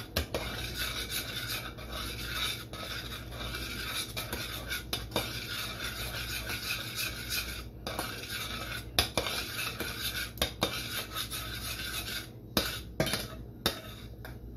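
Barbecue sauce being stirred in a stainless steel saucepan, the utensil scraping steadily around the pan, with a few sharper clinks against the metal near the end.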